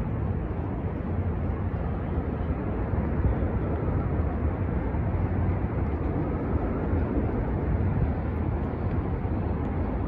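Steady low rumble of outdoor city ambience, with no distinct events.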